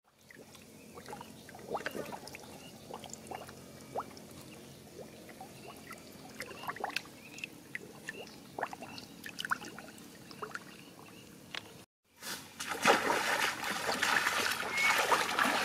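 Shallow muddy water trickling and lapping, with scattered small splashes and drips. After a brief break about twelve seconds in, the water noise comes back louder and fuller, with more frequent splashes.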